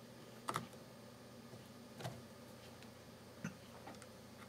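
Faint, scattered clicks and ticks of a dial indicator being handled and clamped into its metal mount on a concentricity gauge, three of them a little louder about half a second, two seconds and three and a half seconds in.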